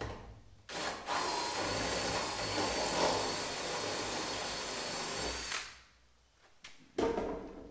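DeWalt 20V Max cordless drill running steadily for about four and a half seconds, drilling a rivet hole in a trailer's metal door, with a thin high whine over it; it stops cleanly and a single knock follows near the end.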